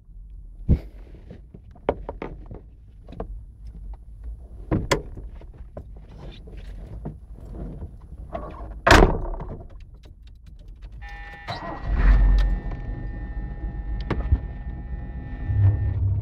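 Clicks and thunks of someone settling into a Ford Mustang, with a heavy door-like thunk about nine seconds in. A steady tone comes on at about eleven seconds, then the engine is started at about twelve seconds and runs with a low rumble.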